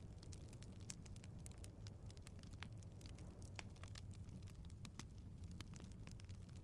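Fireplace fire crackling: frequent irregular sharp pops and ticks over a steady low rumble of the flames.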